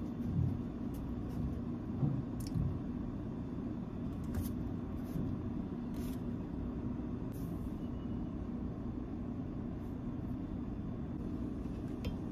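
Soft knocks and brushing of hands and bread rolls against a ceramic baking dish as slider buns are pulled apart and split, the loudest bumps in the first few seconds, over a steady low background hum.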